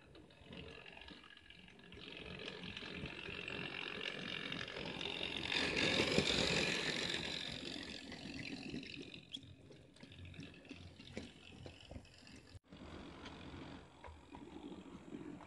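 Model train running past on the track, growing louder to its loudest about six seconds in, then fading. After a sudden break near the end, another model train is heard running.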